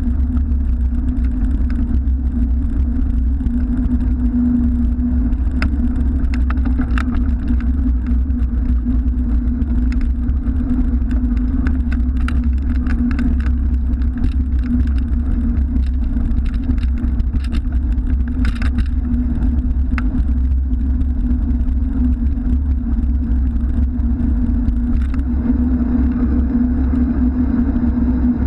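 Steady low rumble of a bicycle ride picked up by a camera mounted on the bike, with scattered sharp clicks and rattles. Road traffic runs beneath it.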